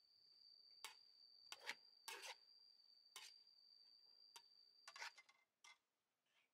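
Faint scrapes of a spatula stirring and tossing a pork heart, chili and garlic stir-fry in a metal wok, about seven strokes over the first five seconds. A steady high-pitched tone runs under them and stops about five seconds in, followed by a few small ticks.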